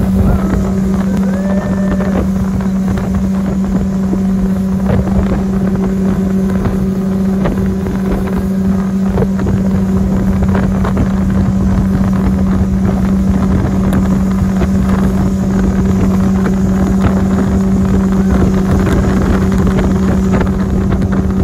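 Speedboat engine running under way at a steady, unchanging hum, with wind buffeting the microphone.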